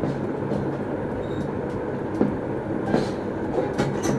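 Light clicks and clinks of thin titanium stove plates being handled and slotted together at their hinges, a few separate ones over the last half, over a steady low rumbling background noise.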